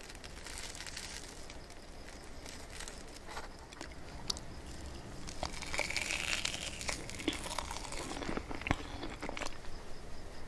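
Close-miked eating of soft layered crepe cake: a fork pressing through the layers, then chewing with sharp, scattered mouth clicks.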